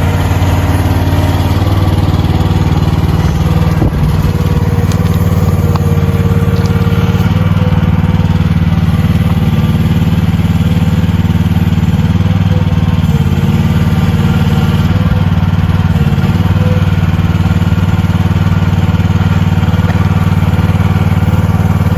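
Small mini excavator engine running steadily at working speed while the machine is worked on its levers.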